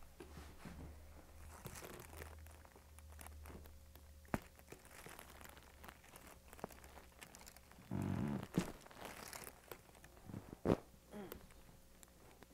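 Chiropractic adjustment sounds: soft rustling and handling noise broken by a few sharp, isolated joint pops. There is a short louder burst about eight seconds in, and the sharpest crack comes near the end.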